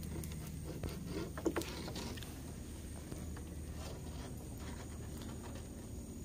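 Gill net being hauled in by hand along the side of an aluminium boat: light knocks and rattles from the net, its floats and the hull, sharpest about a second in, then soft scattered ticks.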